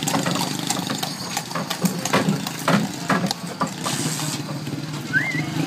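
Horse-drawn cart on the move: irregular knocks and clatter of hooves, harness and cart over the steady hum of a motor engine running nearby.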